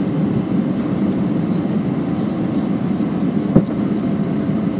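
Steady low rumble inside an airliner cabin as the plane rolls along the ground after landing, with a single knock about three and a half seconds in.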